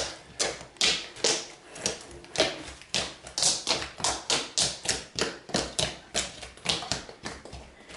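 Fingers repeatedly poking and patting a large sheet of soft, jiggly glue slime, making quick sharp taps, about two or three a second.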